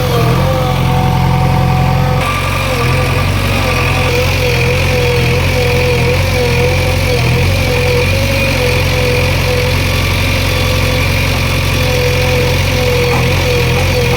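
JCB 3DX backhoe loader's diesel engine running steadily, with a wavering whine over the engine note. The engine note shifts about two seconds in.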